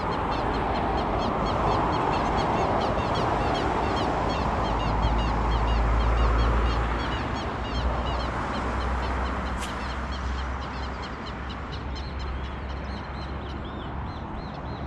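Many birds chattering, a dense run of quick, high, repeated calls, over the steady rush and low rumble of highway traffic that swells for a few seconds mid-way.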